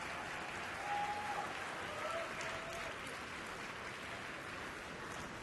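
Arena audience applauding, with a couple of short held shouts in the first few seconds.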